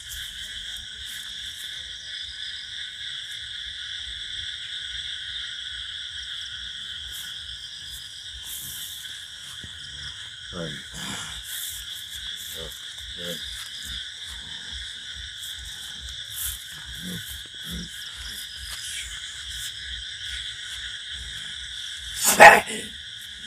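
Steady high-pitched chorus of night insects, with a few faint murmured voice sounds in the middle and a sudden loud cry about a second before the end.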